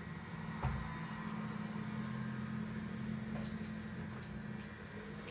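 A steady low mechanical hum, with a soft knock about half a second in and a few faint clicks around the middle.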